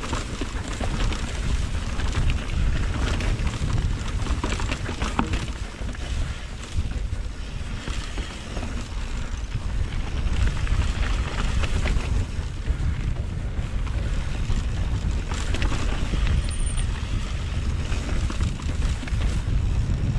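Wind buffeting the microphone of a GoPro action camera riding on a mountain bike descent, over the steady rumble of tyres on a rough, stony trail. Frequent quick clicks and rattles from the bike, chain and camera mount jolting over the rocks.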